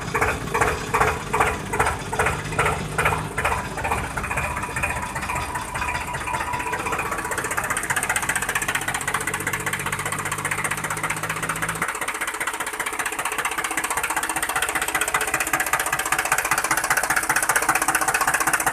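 Small electric geared motor of a homemade toy tractor running with a steady buzzing whir as it tows a toy auto-rickshaw. Background music with a beat is heard over it for the first few seconds, and its low notes drop away about twelve seconds in.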